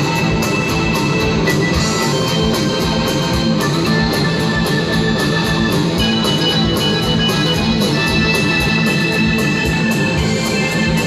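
Progressive rock band playing live: sustained organ-like keyboard chords held over a steady, fast drum beat.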